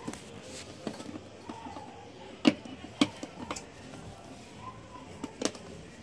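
Hands handling a cardboard keyboard box: several sharp taps and knocks against the box, the loudest about two and a half seconds in.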